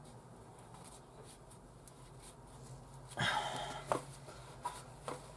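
A cloth rag rubbing and rustling over the engine's oil sump pan around a newly fitted drain plug, starting about three seconds in with a short click, after a faint quiet stretch.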